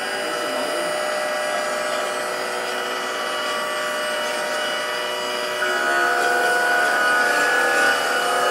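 Small electric fan motors of a student-built radio-controlled hovercraft whining steadily as it hovers across the floor. About two-thirds of the way through, a louder, higher whine joins in as more power goes to the fans.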